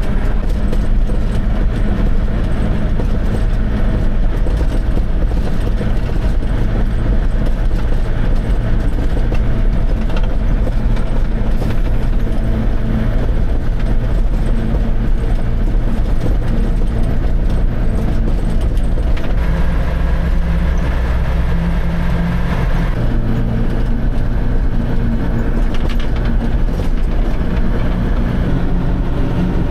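Dump truck's diesel engine running steadily with a deep, even drone. About two-thirds of the way through, the engine note strengthens and shifts for a few seconds, as under changing load, then settles again.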